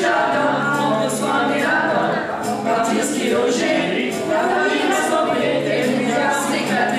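A small group of young voices singing a song together in chorus.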